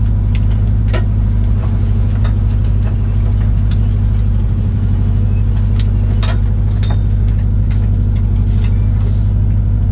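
Rally car engine running steadily at low revs, heard from inside the cabin, with occasional light clicks and knocks. The engine has lost power, with one cylinder not pulling its weight, which forced the crew to retire.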